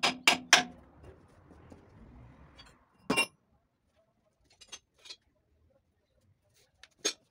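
A hammer hammering on the steel rear tandem suspension of a 1961 Scania L75 truck chassis, working the equalizer beam loose for removal: the last few quick ringing metal blows, about four a second, stop within the first second. A single sharp metallic clank follows about three seconds in, and a lighter clink comes near the end.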